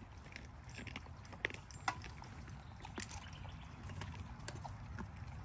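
Dogs chewing and crunching meaty bones: scattered sharp cracks and clicks, a few louder ones, over a low steady rumble.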